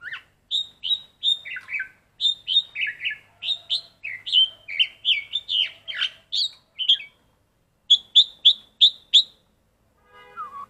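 Black-collared starling singing: a fast run of short chirping and whistled notes, a pause of about a second, then five sharp notes in quick succession. Near the end comes a short, lower whistle with even overtones.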